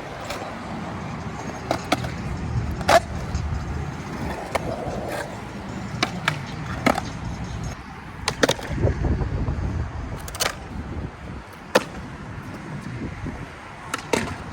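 Skateboard wheels rolling with a steady rumble, broken by about eight sharp clacks of boards popping and landing.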